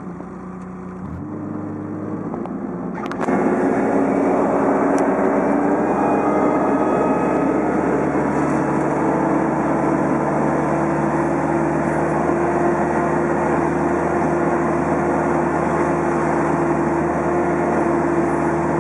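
Manitou all-terrain forklift's engine heard from inside the cab, picking up about a second in and jumping to high revs about three seconds in. It then runs steadily at high revs, its pitch creeping slowly higher.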